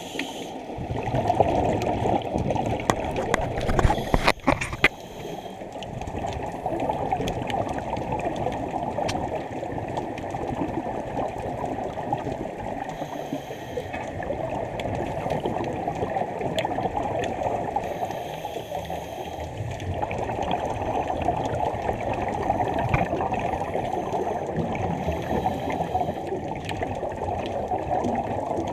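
Scuba diver breathing through a Beuchat regulator underwater: exhaled air bubbling and gurgling, muffled, with a few sharp knocks about four seconds in.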